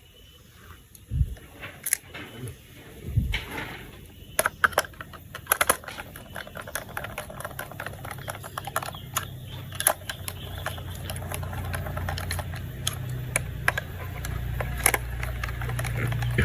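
A few sharp plastic clicks, then a toy's small battery motor starts up about three seconds in and runs with a steady hum that gradually grows louder, under a continuous patter of small plastic clicks and rattles.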